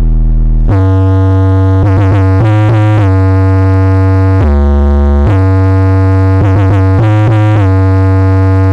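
Very loud electronic music with a heavy synthesizer bass line played through a 2500-watt-class 'sound balap' contest sound system. Deep held bass notes step from pitch to pitch, with a lower note held about half-way through.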